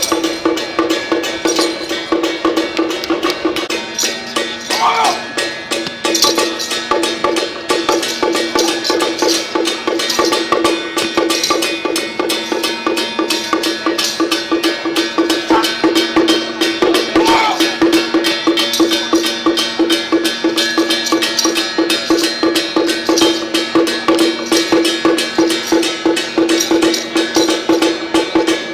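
Fast, continuous percussion of a Song Jiang martial-arts troupe: dense, even strikes over a steady ringing tone.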